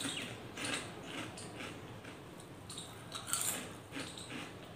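Crisp snack chips being chewed close to the microphone, a sharp crunch about every half second, loudest about three and a half seconds in.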